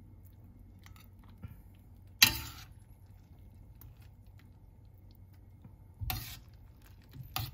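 Serving spoon clinking against a stainless steel pan while ladling out vegetable soup: three sharp clinks that ring briefly, the loudest about two seconds in and two more near the end, with soft scooping in between.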